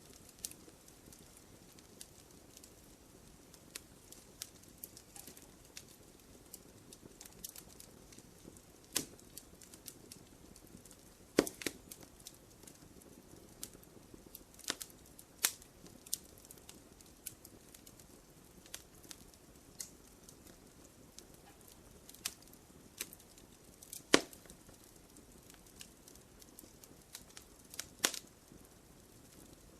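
Wood fire crackling in a fireplace: a soft steady hiss with irregular sharp pops and snaps, a few of them loud.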